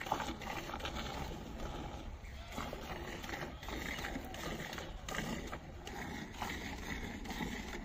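A cow being hand-milked at speed, jets of milk squirting into a bucket.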